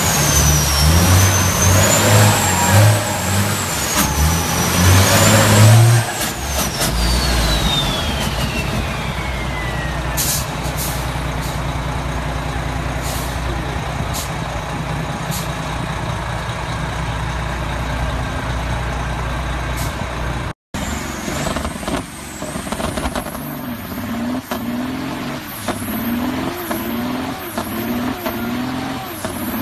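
Semi-truck diesel engine revving hard during a rear-tyre burnout, with a high wavering whistle over it. About six seconds in the revs drop, the whistle glides down, and the engine runs on at a steady lower speed. After a cut, another semi truck's burnout gives an engine note that pulses a bit over once a second.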